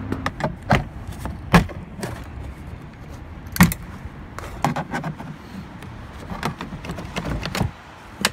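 Plastic interior door trim panel of a 1997 Jeep Grand Cherokee being pried off with a flathead screwdriver: an irregular run of sharp clicks and knocks as the panel clips and plastic give, with the loudest knocks about a second and a half and three and a half seconds in.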